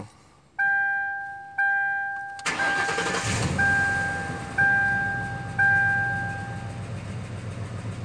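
Ford Crown Victoria's dashboard warning chime dinging about once a second while its 4.6-litre V8 cranks and fires about two and a half seconds in, then settles into a steady idle. No timing-chain rattle is heard at this idle with the heater off.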